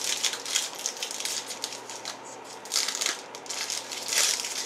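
A trading card pack's wrapper being torn open and crinkled by hand in irregular rustles, with louder tearing bursts about three and four seconds in.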